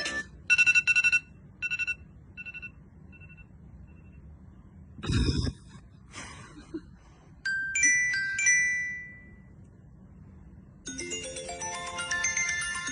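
Electronic ringtone audio: a bright two-note beep repeats about once every 0.7 seconds, fading like an echo, then a single loud thud, then a few short ringing chime tones. Melodic ringtone music with a bass line comes back near the end.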